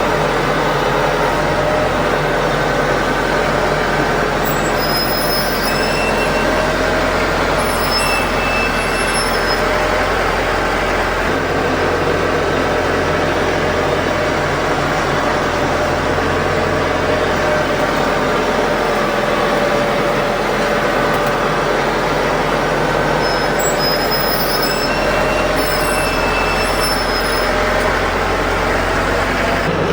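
Diesel tractor engine running steadily, with a few short high-pitched squeaks in two clusters, about five to ten seconds in and again near the end.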